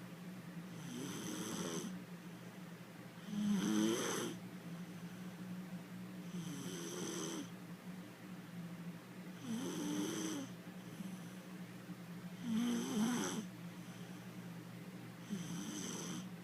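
A little girl snoring in an even rhythm, one snore about every three seconds, the loudest about four seconds in and again near thirteen seconds.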